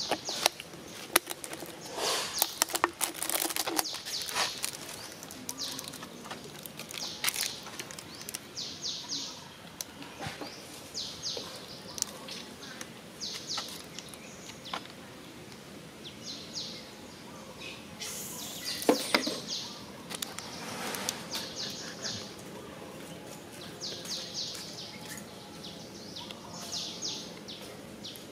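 Birds chirping in short repeated bursts of high notes, with scattered sharp clicks and a few louder knocks, the loudest about two-thirds of the way through.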